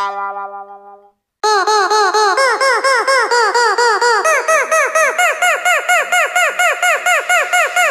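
A held horn-like note fades out in the first second. After a short gap, a fast, even run of cartoon squeaks begins, each one a quick rise and fall in pitch, several a second.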